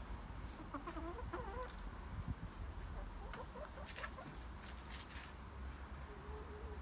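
Chickens clucking off and on: short calls that rise and fall about a second in and again around three seconds in, and a brief steadier call near the end, over a low steady rumble.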